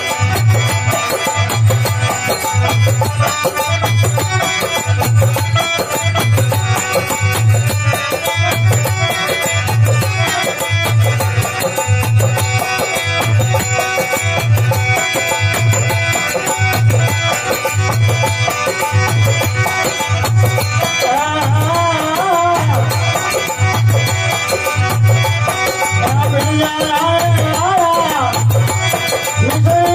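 Rajasthani folk devotional bhajan music: a deep drum keeps an even beat just over once a second under a busy melody. A wavering, voice-like melodic line rises and falls twice in the second half.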